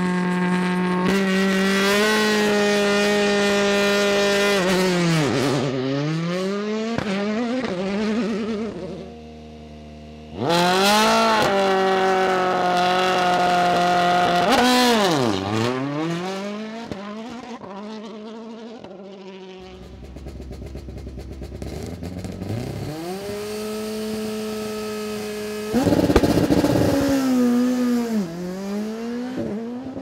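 Three rally cars leave a start line one after another; the first is a Hyundai i20 WRC and the second a Citroën DS3 WRC, both World Rally Cars with 1.6-litre turbocharged four-cylinder engines. Each holds its engine at a steady high rev on the line, then launches away, its pitch dropping and climbing again at each upshift as it fades. The third car leaves with a sudden loud burst about two-thirds of the way in.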